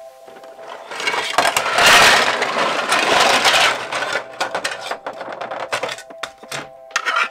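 3D-printed plastic parts clattering out of a plastic storage tub onto a wooden tabletop. The clatter is loudest about two seconds in, then gives way to scattered clicks as the parts are shifted by hand.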